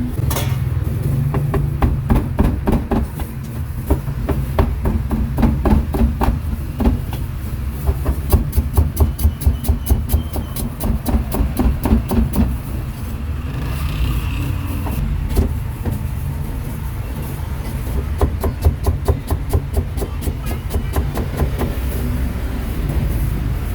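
Cleaver chopping through pork: runs of quick, repeated sharp strikes, over a steady low rumble.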